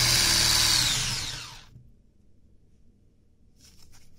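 Electric hand mixer beating egg batter in a glass bowl, loud and steady, then switched off about a second in, its whine falling as the beaters spin down. A few faint taps follow near the end.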